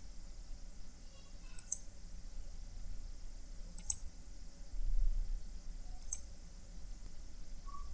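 Three faint, sharp clicks about two seconds apart, over a low background hum.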